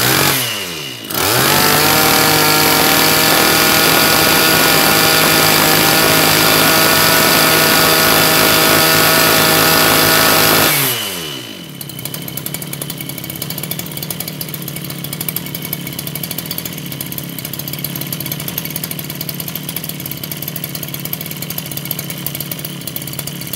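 Maruyama BCS32M 32cc two-stroke brush cutter engine revving. It eases off briefly, is run up to full throttle about a second in and held there for about ten seconds, then drops back to a steady idle.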